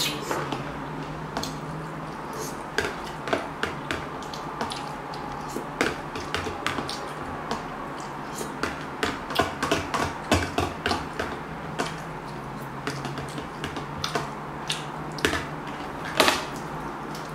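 Metal fork clicking and scraping against a plastic food container as ramen noodles are picked out and eaten, in irregular clicks with chewing and slurping between, over a steady low hum.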